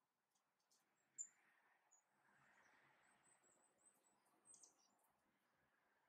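Faint, very high, thin songbird calls: a sharp single note about a second in, a quick run of short notes around three seconds in, and another brief cluster a little later.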